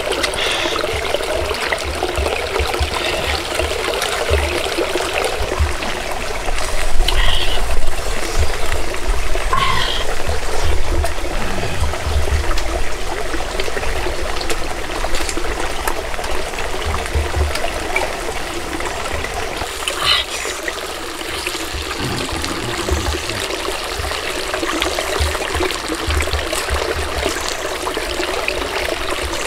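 Shallow stream trickling steadily over rocks, with occasional low bumps.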